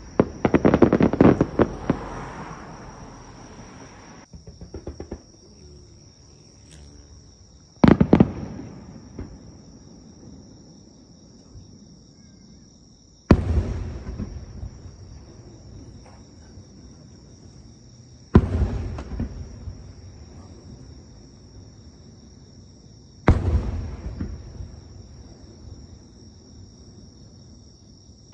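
Aerial fireworks bursting: a rapid volley of cracks and bangs for the first few seconds, then single loud shell bursts about every five seconds, each trailing off in a long rolling echo.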